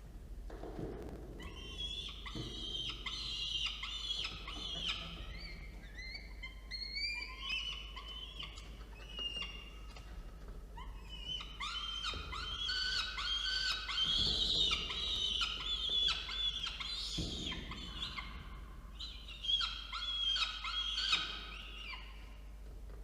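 Peregrine falcon chicks begging for food with rapid, high-pitched, repeated calls that lull briefly about halfway through and then resume. A steady low hum runs underneath.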